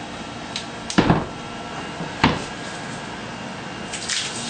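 Shower wall panel knocking against the wall as it is set and pressed into place, two thumps, about a second in and just past two seconds in.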